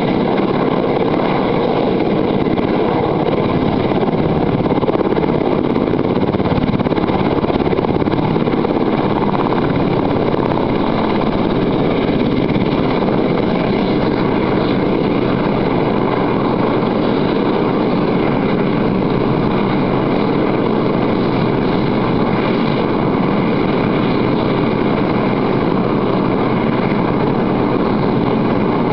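Search-and-rescue helicopter running steadily, its turbine whine over a constant rotor noise.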